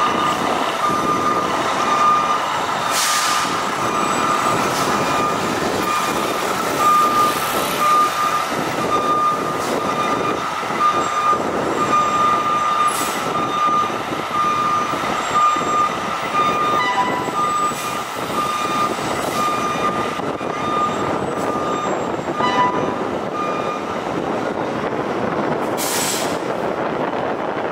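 Fire trucks' diesel engines running as the apparatus pulls out of the station, over a repeating electronic warning beep that stops shortly before the end. A few short hisses of air cut through.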